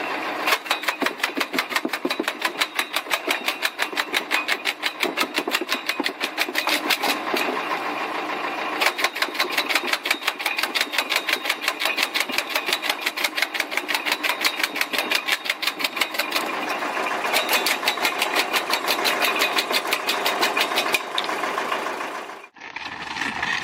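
Motor-driven firewood-cutting rig running with a fast, even clatter of sharp clicks, pausing briefly twice; it cuts off sharply near the end.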